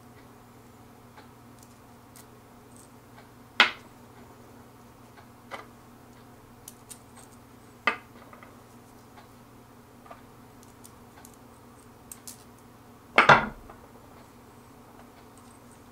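Small metal assembly hardware clinking as parts are slipped onto bolts and handled: a few sharp, separate clinks several seconds apart, the loudest cluster near the end.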